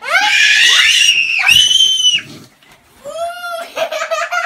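A young child's high-pitched screaming for about two seconds, then a child giggling and laughing near the end.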